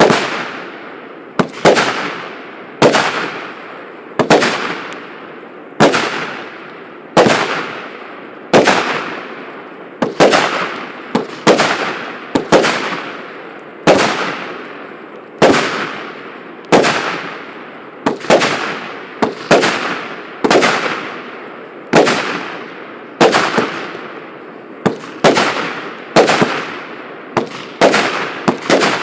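Firework cake battery of 148 0.8-inch shots firing: a sharp bang about every second and a half, each trailing off. Near the end the shots come closer together, some in quick pairs.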